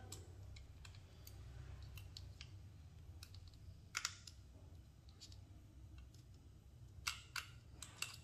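Faint small clicks and ticks of a small screwdriver working the screws out of a Nikon D810 battery grip's plastic battery tray, with a few sharper clicks about four seconds in and a cluster near the end. A steady low hum runs underneath.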